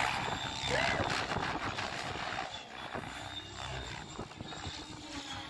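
Radio-controlled aerobatic helicopter flying a freestyle routine. Its rotors and motor give a steady high whine, loudest in the first second or so and then easing off a little.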